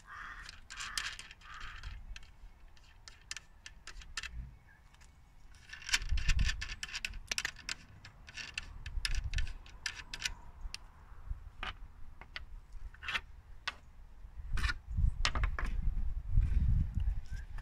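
Small metallic clicks and light rattles of hand-unscrewed mounting knobs and fittings being taken off a racket frame on a portable stringing machine, with a few dull low bumps of handling partway through and again near the end.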